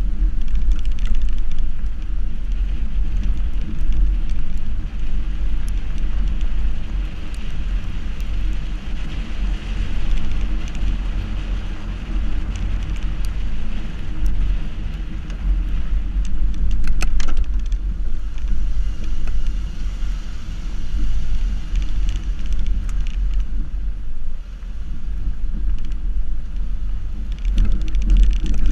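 Subaru XV's tyres running over a gravel dirt track, heard from a camera mounted low beside the front wheel: a steady low rumble with a hiss of gravel. Scattered sharp clicks, with a small cluster a little past the middle, are stones flicked up against the car.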